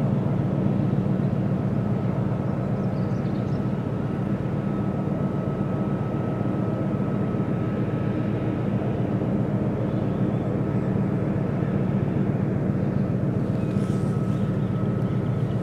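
Steady low engine drone of passing ships, unbroken throughout, with a faint steady whine joining about four seconds in.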